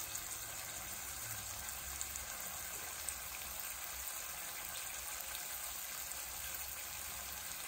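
A slice of semi-processed cheese sizzling steadily in a hot non-stick frypan over a butane burner, with a few faint pops.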